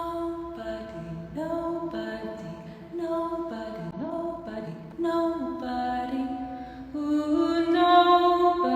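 Creepy a cappella singing: several voice parts in harmony hold slow notes and slide between them, growing louder near the end.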